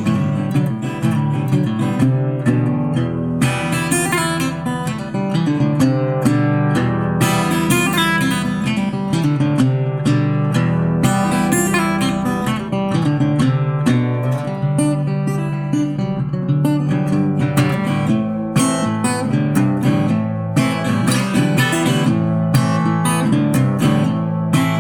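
Acoustic guitar music: an instrumental passage of strummed and picked acoustic guitar.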